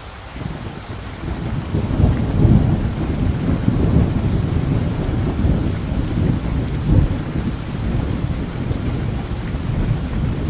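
Steady rain with a long roll of thunder that rumbles in about half a second in, swells to its loudest after two seconds or so, and keeps rolling under the rain.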